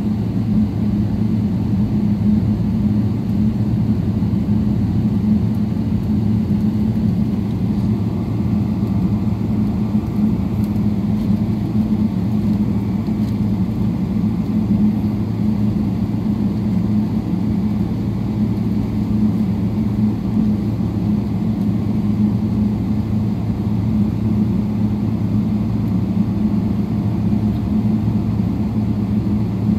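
Steady low drone of an airliner's jet engines at taxi power, heard inside the passenger cabin, with a constant deep hum.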